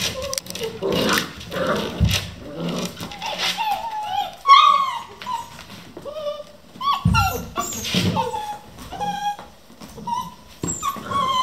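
Vizsla puppies in a litter whining and yipping, many short cries that rise and fall in pitch, overlapping one another, with a few dull thumps.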